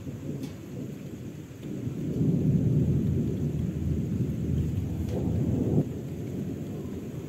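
Rolling thunder: a low rumble that swells about two seconds in and drops back sharply just before six seconds, following a lightning flash.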